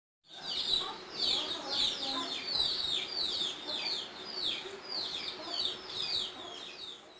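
Bird chirping: a steady series of short, high, falling calls, about two a second, that starts and stops abruptly.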